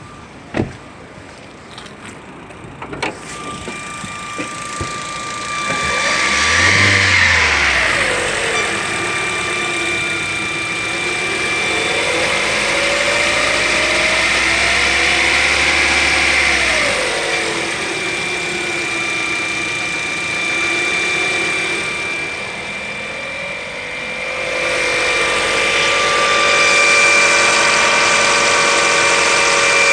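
Lada Vesta CNG's four-cylinder engine running, revved up and back down twice as the accelerator is pressed. Over it sits a steady high whistle from the gas pressure reducer.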